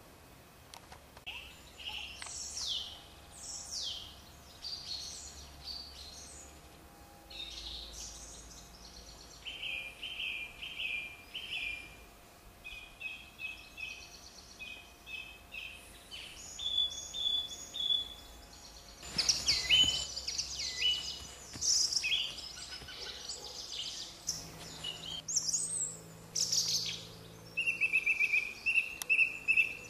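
Several birds singing and calling together: a mix of quick falling whistles, chirps and short repeated notes, with a steady run of evenly spaced notes near the end.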